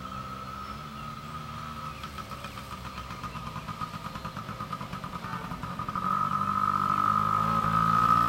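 Small two-stroke single-cylinder engine of a Yamaha PW80 youth dirt bike running at a steady low speed while being ridden, its note holding an even pitch and growing louder about six seconds in as the bike comes close.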